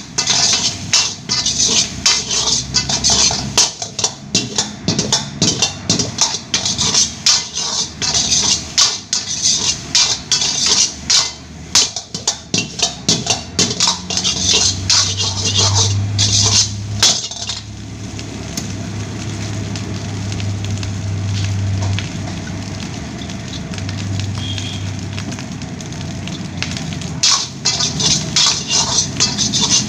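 Metal spatula rapidly clanging and scraping against a wok as fried rice is stir-fried, over a steady hiss. The clatter eases after about seventeen seconds into a steadier stretch with a low hum, then picks up again near the end.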